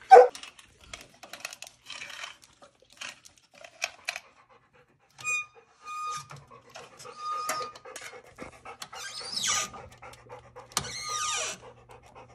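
Handling noise as a new spool of MIG welding wire is unwrapped from its plastic and mounted on the welder's spool hub. There is a sharp knock at the start, then scattered clicks and rustles and a few short squeaks, with a faint low hum in the second half.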